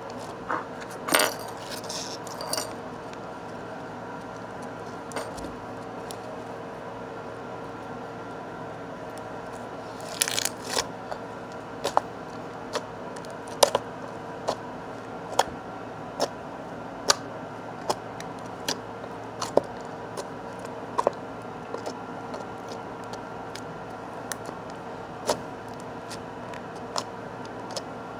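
Slime being squeezed and pressed in the hands, giving a few crackly squelches and then sharp pops about once a second as air pockets burst.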